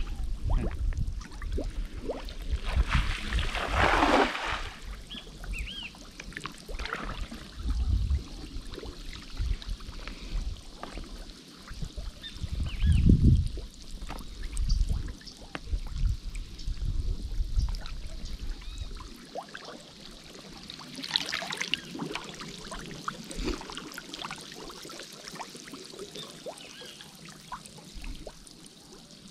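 River water trickling and splashing, with a louder splash about four seconds in and another about twenty-one seconds in. Low rumbles and knocks run through the first two-thirds, the loudest a low thump about thirteen seconds in.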